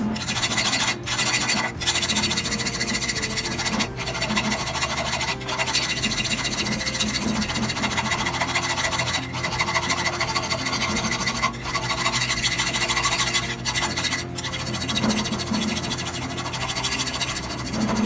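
Steady rasping scrape of abrasive shaping work on a knife blank, broken by brief pauses every second or few.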